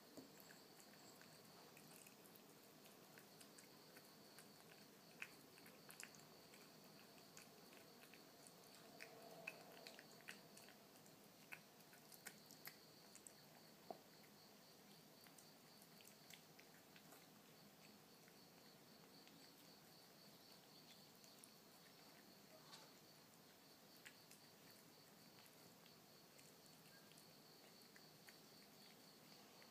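Kitten eating wet canned cat food from a saucer: faint, scattered chewing and licking clicks, more frequent in the first half.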